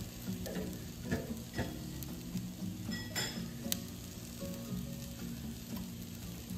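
Brussels sprouts sizzling steadily in a frying pan as smoked paprika is shaken over them from a spice jar, with a few light clicks.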